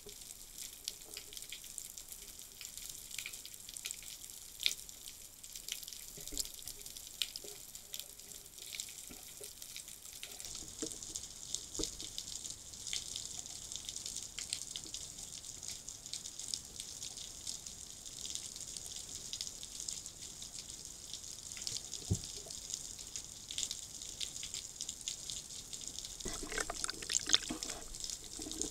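Underwater sound picked up by a pole-mounted underwater camera: a steady high hiss sprinkled with many small clicks and crackles, with a louder burst of water churning past the camera near the end.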